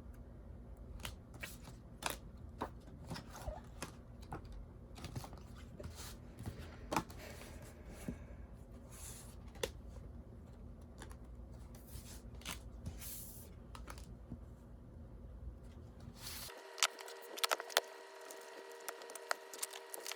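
Parcel and album packaging being opened by hand: scattered tearing, rustling and small clicks over a low steady hum. About three-quarters of the way through the sound cuts abruptly: the hum is gone, and faint steady tones with a few clicks take its place.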